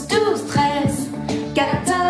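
A woman singing a French children's song over backing music.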